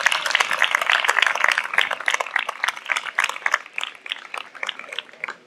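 Audience applauding, a dense patter of many hands clapping that thins out and dies away over the last second or so.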